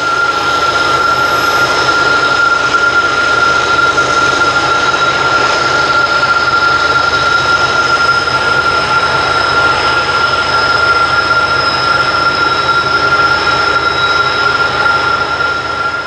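Wheel flanges of a loaded coal train squealing on a sharp curve: one steady high-pitched squeal, over the low running of the diesel locomotives.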